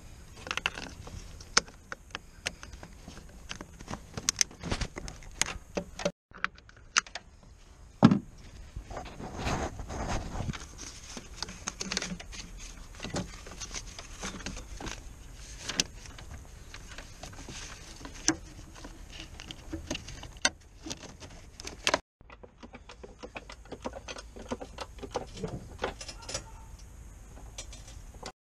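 Hand tools working on car metalwork: irregular metallic clicks, clinks and knocks, with one louder knock about a third of the way in.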